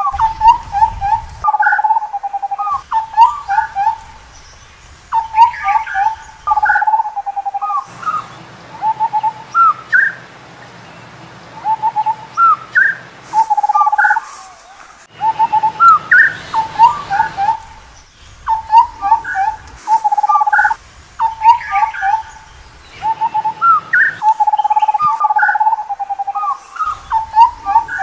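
Indian scimitar babbler calling: repeated phrases of short, clear, hooked notes, some higher, with now and then a longer wavering note. The phrases last a second or two, with short pauses between them.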